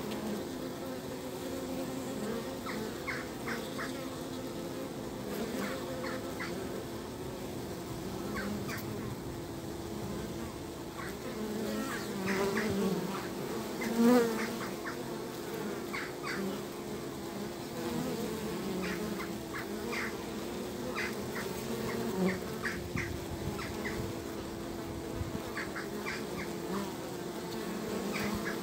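Honeybees buzzing at the entrance of a hive, a steady hum of many wings as bees fly in and out. About halfway through, one bee passes close and the buzz swells briefly.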